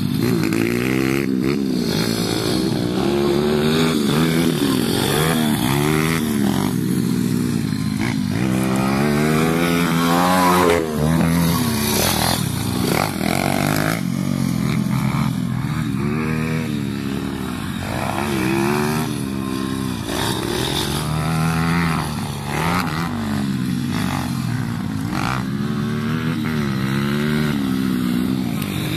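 Pit bike engines, small single-cylinder four-strokes with aftermarket exhausts, revving up and down repeatedly as the bikes ride the dirt track, more than one engine heard at times.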